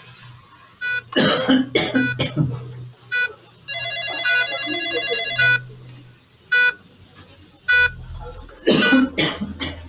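A person coughing in two bouts of several coughs, about a second in and again near the end. Between the bouts an electronic beep repeats about once a second, and a ringing, phone-like electronic tone sounds for about two seconds in the middle.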